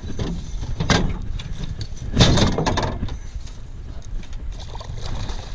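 Landing net and fishing gear knocking against the side of a small dinghy: a sharp knock about a second in, then a louder clatter a little after two seconds, over a steady low rumble.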